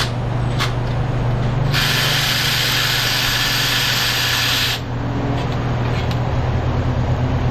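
A power tool runs for about three seconds in one steady burst and stops abruptly, driving a nut onto a catalytic converter stud. A steady low hum runs underneath.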